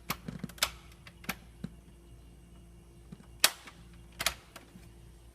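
A series of sharp clicks and knocks, irregularly spaced, with the loudest single knock about three and a half seconds in. A faint steady hum runs beneath them.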